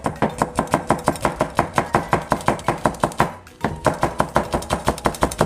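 Chef's knife slicing green Cheongyang chili peppers on a plastic cutting board: a quick, even run of knife strokes, about five a second, each hitting the board, with a brief pause a little past halfway.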